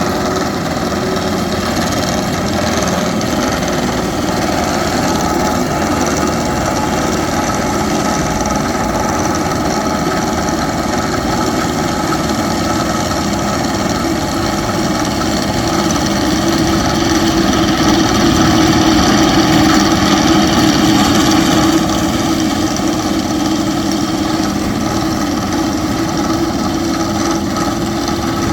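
Heavy construction machinery running steadily with a continuous engine-and-tool noise. It grows louder about sixteen seconds in and drops back suddenly about twenty-two seconds in.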